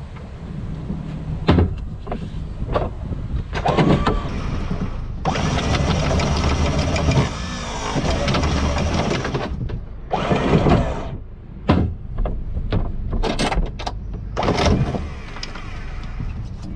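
Wind rumbling on the microphone on a boat's foredeck, with a run of sharp knocks and a couple of brief creaks or squeaks as deck gear is handled.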